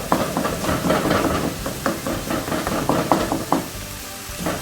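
Ground beef and pork sizzling in a frying pan as the water from the meat boils off, while a utensil stirs and knocks against the pan breaking up the clumped meat. The knocking stops about three and a half seconds in, leaving the sizzle.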